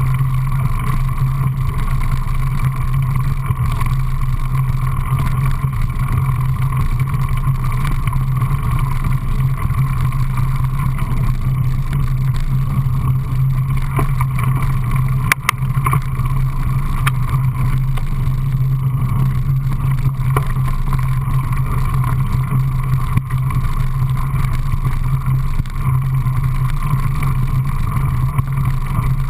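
Steady rushing rumble of a mountain bike riding fast down a gravel and dirt trail, heard from a camera mounted on the bike, with a few sharp clicks and rattles from bumps around the middle.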